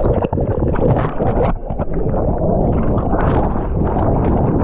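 Churning surf heard with the camera under the water: a loud, muffled rush and gurgling of water and bubbles, broken by many sharp splashes.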